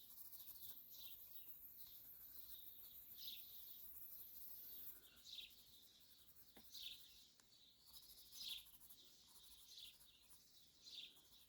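Faint birdsong: scattered short bird chirps. A thin high hiss, like insects, runs underneath and stops about halfway through.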